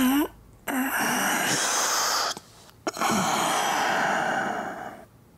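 A person's long, breathy vocal sounds, two drawn-out exhales of about two seconds each, preceded by a short cry whose pitch sweeps down and back up.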